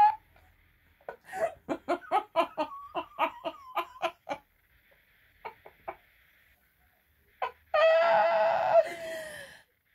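A woman laughing helplessly behind her hand in a rapid run of short 'ha' bursts, which trails off. Near the end comes one long, high-pitched cry lasting about two seconds that dips in pitch as it ends.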